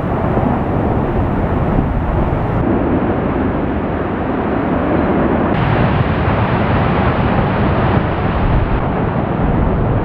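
Lava fountain at an erupting basaltic vent: molten lava churning and spattering, heard as a loud, steady, low rumbling rush.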